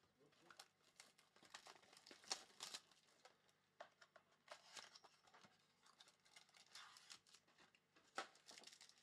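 Faint rustling and soft clicks of baseball trading cards being handled by hand, with a foil card pack crinkling.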